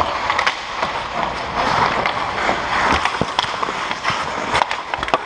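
Ice hockey skates scraping and carving on the ice, with sharp clacks of sticks and puck against the goalie's pads and the ice as players crowd the crease. The loudest knocks come a little after three seconds and again near the end.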